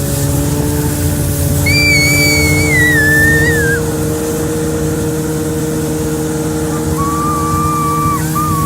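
Snowmobile engine running steadily at an even speed while towing a sled. Twice a high, wavering tone rises over it: once about two seconds in for a couple of seconds, and again near the end.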